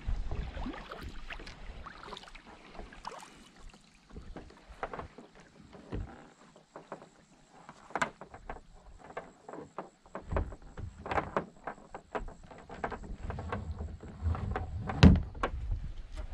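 Kayak paddling: the paddle blades dipping and dripping, with irregular small splashes and water lapping at the hull. Some low rumble of wind on the microphone, and a sharper knock about a second before the end.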